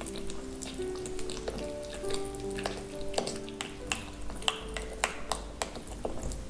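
A spoon stirring a thick, wet chia-seed and chopped-onion mixture in a glass tumbler, with many quick irregular clicks of the spoon against the glass. Background music with held notes plays underneath.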